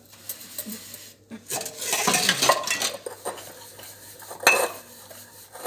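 Stainless steel pots, bowls and plates clattering against each other as they are handled, with a burst of clatter in the first half and one sharp ringing clink of steel about four and a half seconds in.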